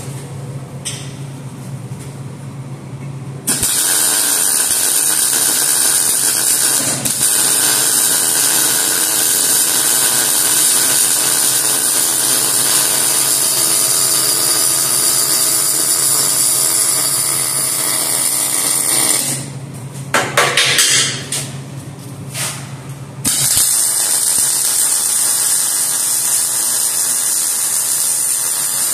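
Electric welding arc sizzling steadily on the steel of a hitch bracket, filling a gap with weld. It starts about three and a half seconds in, stops near nineteen seconds apart from a couple of brief bursts, and starts again about twenty-three seconds in. A low steady hum is left in the pauses between welds.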